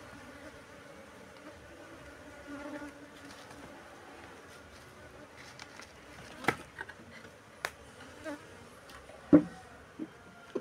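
A honeybee colony buzzing steadily around its cut-open nest, swelling briefly about two and a half seconds in. A few sharp clicks and knocks come in the second half, the loudest near the end.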